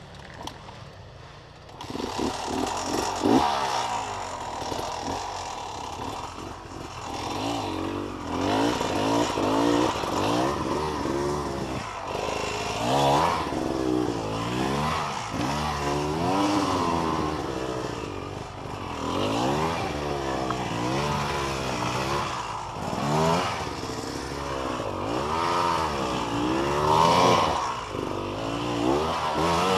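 Enduro dirt bike engine revving up and down over and over, starting about two seconds in, with scraping and clattering mixed in.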